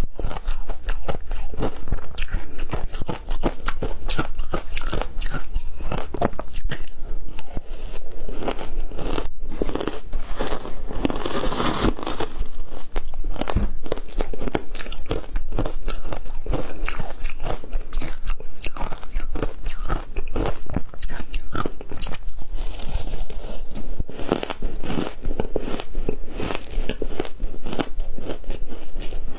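Ice chunks coated in matcha powder being bitten and chewed: loud, continuous crunching, a dense run of crisp cracks and crackles.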